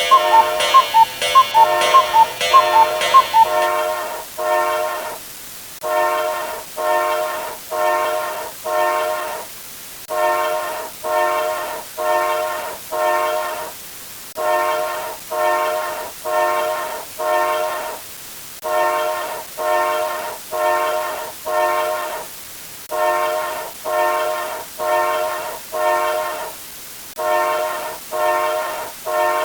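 Horn, most like a train's air horn, sounding a chord in short repeated blasts. The blasts come in groups of four or five, about two-thirds of a second apart, with a brief pause between groups. A different quick, pitched ticking sound plays at the start and stops about three and a half seconds in.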